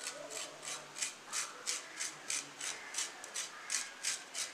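Lemon peel being grated on a handheld grater: short scraping strokes, about three a second, as the rind is zested.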